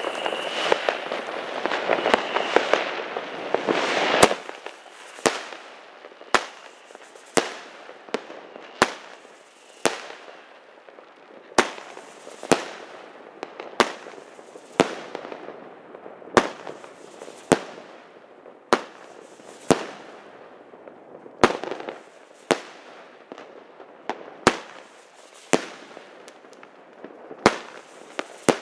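Weco Stormy Flash firework going off: about four seconds of dense hissing and crackling, then single sharp shots roughly once a second, each followed by a short fading hiss.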